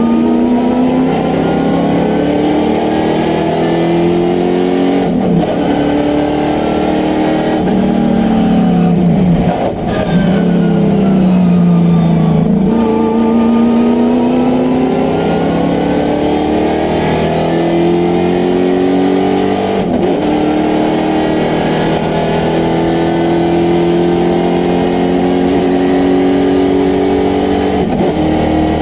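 Racing engine of a VK Commodore sports sedan, heard from inside the cabin, working through the gears on track. It comes off the power and down through the revs about a third of the way in, then accelerates hard, its pitch climbing with upshifts around two-thirds of the way and again near the end.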